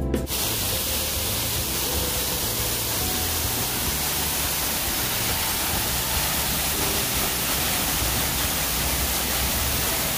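Steady rushing of the Trishuli river's fast-flowing water, an even, unbroken hiss and rumble.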